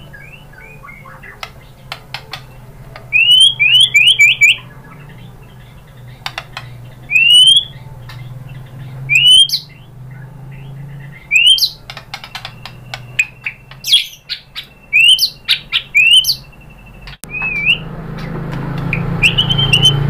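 White-rumped shama (murai batu) singing: clusters of loud, quick rising whistled notes, with short clicks and chips between phrases. A low steady hum runs underneath and grows louder near the end.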